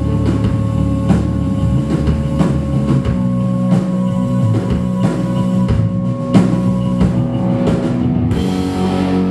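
A rock band playing live on drum kit, guitars and bass, with a steady beat struck about every two-thirds of a second. A cymbal wash swells about eight seconds in as the song winds toward its close.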